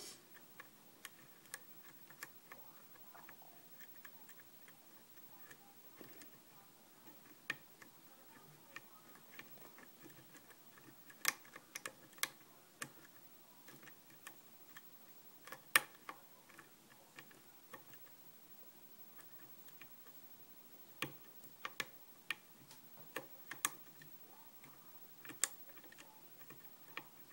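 Faint, irregular clicks and ticks of a lock pick working the spool pins of a five-pin Kwikset lock under a tension wrench, with a few louder clicks about eleven and sixteen seconds in.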